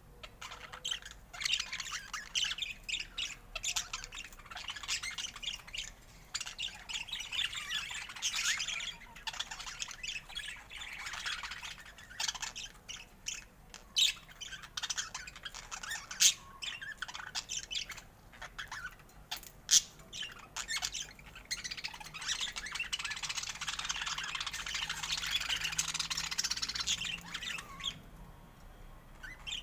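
A group of budgerigars chattering and chirping without a break, a dense warbling that grows fuller for several seconds near the end before thinning out. A few sharp clicks stand out above it.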